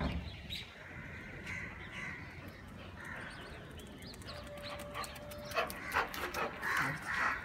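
A dog barking a few times in the last couple of seconds, over birds chirping.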